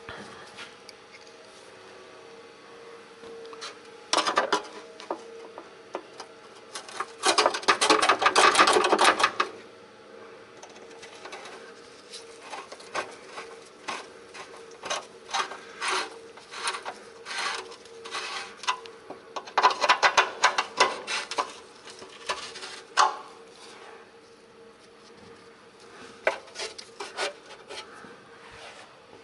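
Hand tool work on the car's handbrake cable adjuster: bursts of rapid ratchet clicking, the longest about two seconds long, with scattered single metal clicks between them, over a steady faint hum.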